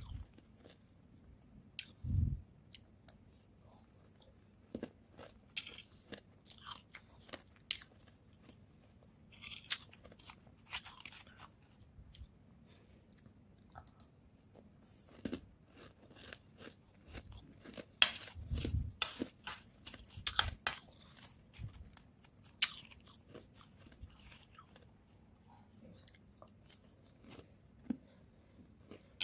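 Powdery freezer frost crunching as it is scooped with a metal spoon and chewed close to the microphone: irregular crisp crunches, densest about two-thirds through, with a couple of dull low thuds.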